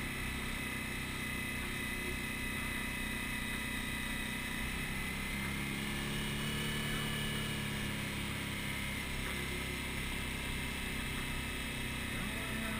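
Suzuki V-Strom's V-twin engine running at cruising speed on a moving motorcycle, mixed with steady wind and road noise; the engine note rises a little around the middle.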